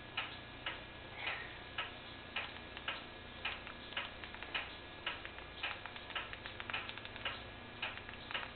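A clock ticking steadily in the room, nearly two ticks a second.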